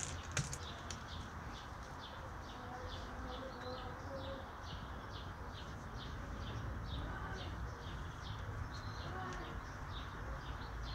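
Outdoor bird sound: short high chirps repeating about three times a second, with faint dove-like cooing behind them, over a low steady rumble.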